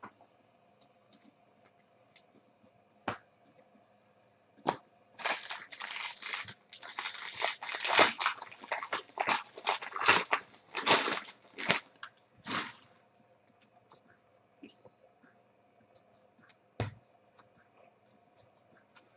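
Plastic wrapper of a pack of 2016 Bowman Draft baseball cards crinkling and tearing as the pack is opened. It is a dense run of crackling lasting about seven seconds, starting about five seconds in, with a few single taps from the cards being handled before and after.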